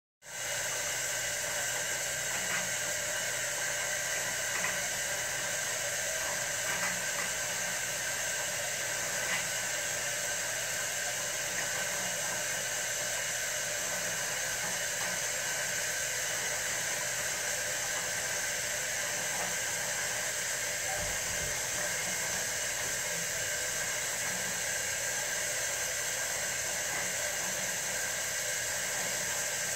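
Steady rushing hiss of water moving in an aquarium during a water change.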